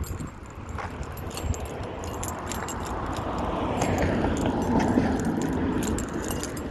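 A road vehicle passing by, its tyre and engine noise swelling to a peak about four to five seconds in and then easing off.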